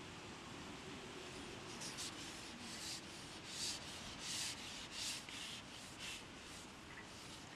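Long carbon match-fishing pole being pushed out hand over hand, rasping as it slides over its support in a run of short strokes about half a second to a second apart, faint.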